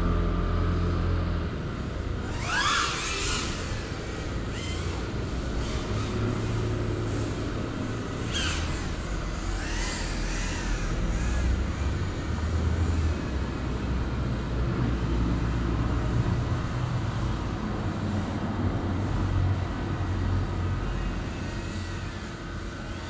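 Motors and propellers of a GEPRC Cinelog35 FPV cinewhoop drone whining in flight, sweeping up and down in pitch a few times as the throttle changes, over a steady low rumble.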